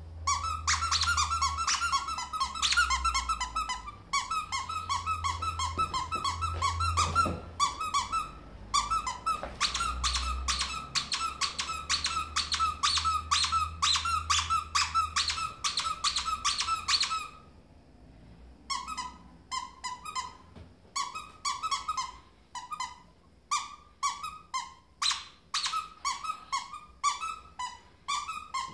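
A squeaky plush toy being squeezed over and over, giving a quick run of high squeaks several times a second. The run stops briefly past the middle, then picks up again in shorter spurts.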